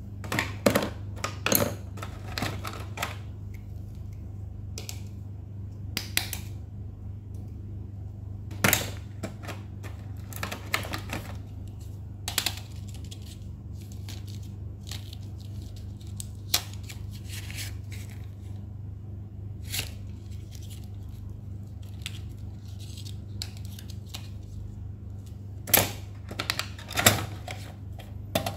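Stationery being handled: scattered clicks, taps and short rustles of pencils, a cardboard crayon box and a tin pencil case, with a cluster of sharp taps near the end as the pencil case is lifted out. A steady low hum runs underneath.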